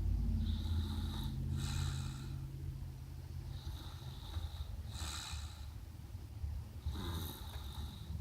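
Snoring: a low, rattling snore under a breathy hiss that comes back about every three seconds, about three breaths in all.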